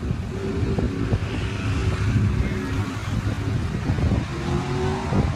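A vehicle engine idling steadily, with wind noise on the microphone.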